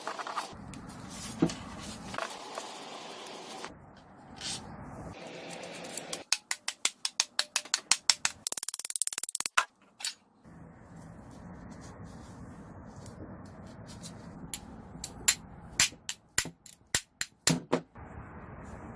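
Sharp clicks and knocks of small hard parts being handled. A quick run of clicks comes about six seconds in, with a brief hiss, and a few louder separate clicks come near the end.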